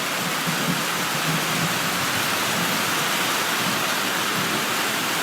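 Heavy rain pouring down steadily in a thunderstorm, an even hiss of rain falling on surfaces.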